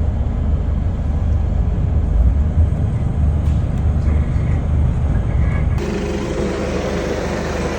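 Vehicle running on a city road, a steady low rumble of engine and road noise; about six seconds in the sound changes abruptly and takes on more hiss.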